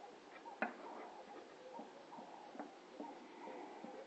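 Filler spreader scraping body filler across a car panel. Faint squeaks and a few light clicks, the sharpest about half a second in.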